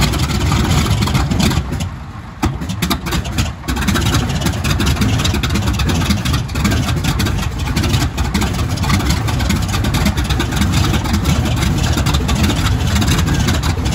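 Grumman TBM Avenger's Wright R-2600 fourteen-cylinder radial engine running just after a cold start. It runs unevenly for the first few seconds, with a dip about two seconds in, then settles into steady, loud running.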